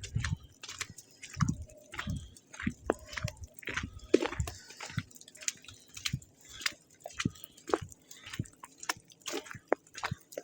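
Footsteps crunching in snow, irregular crackling with a low thump at each step about every second and a half.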